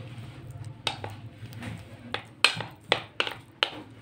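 A spoon mixing chicken pieces in an egg and cornflour batter in a bowl, clicking against the bowl's side in a run of short, irregular clinks, about seven, most of them in the second half.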